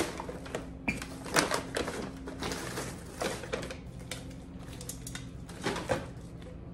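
Paper shopping bag rustling and wrapping paper crinkling in irregular bursts as a glass tumbler is taken out and unwrapped by hand, with a few sharper taps.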